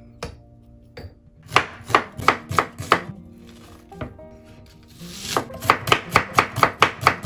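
Chef's knife slicing an onion on a wooden cutting board, each stroke knocking through onto the board. A run of strokes comes, then a pause, then a quicker run of about five strokes a second near the end.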